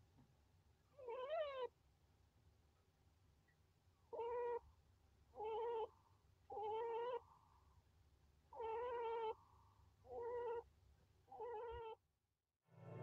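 Chinchilla moaning in pain while giving birth: seven short, pitched cries, the first about a second in, then six more about a second apart.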